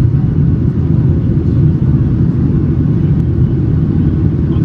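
Steady low rumble of a Boeing 737-800 in flight, heard from inside the cabin: the CFM56 jet engines and rushing airflow make a constant drone.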